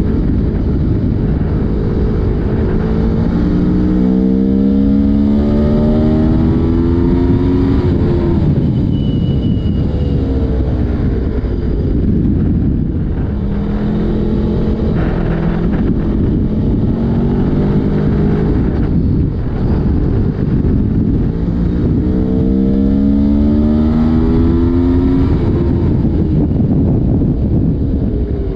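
Aprilia Tuono motorcycle engine under hard acceleration, its pitch climbing in steps as it is shifted up through the gears. This happens twice, with a stretch of lower, steadier running between the two pulls.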